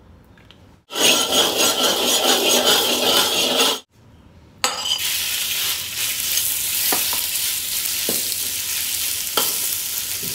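Cubes of marinated beef searing in hot oil in a wok: a loud sizzle starts about a second in, cuts out for a moment near four seconds, then goes on steadily while a metal spatula stirs the meat, with a few sharp knocks of the spatula against the pan.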